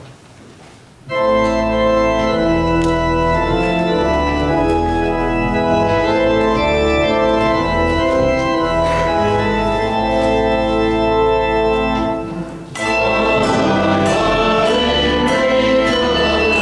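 Church organ playing sustained chords over low bass notes, starting about a second in. The music dips briefly about three-quarters of the way through and resumes with a busier line.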